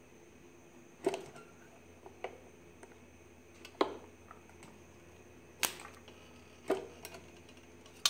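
Toggle clamp and electrode arm of a homemade spot welder being worked while a thin stainless steel sheet is shifted between the electrodes: about six sharp metal clicks and clacks, a second or so apart, over a faint steady hum.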